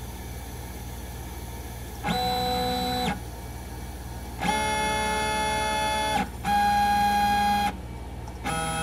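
Stepper motors of a Snapmaker 2.0 A350 gantry whining as the CNC tool head makes rapid G0 moves at feed rate 2000, commanded from the console. There are four separate steady whines, each about one to two seconds long, starting and stopping sharply, the first about two seconds in and the last near the end, over a steady low hum.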